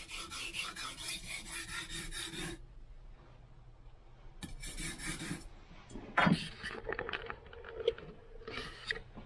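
Sashimi knife blade stroked back and forth on a thin whetstone in its final sharpening: a quick, even rasping at about four or five strokes a second. It stops, a shorter burst of strokes follows near the middle, then scattered scrapes and clicks.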